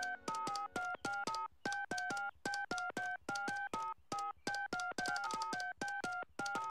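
Touch-tone telephone keypad being dialled: a quick run of short two-note DTMF beeps, several a second, with a couple of brief pauses, as a long number is keyed in.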